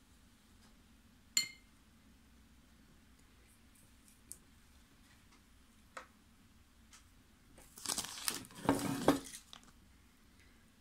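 Painting tools being handled: a single light clink with a brief ring about a second in, two faint ticks, then a crinkling rustle lasting about two seconds near the end.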